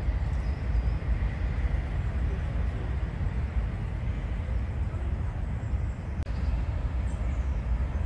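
Wind buffeting the microphone outdoors: a heavy, fluttering low rumble over a steady haze of outdoor noise, with a brief drop about six seconds in.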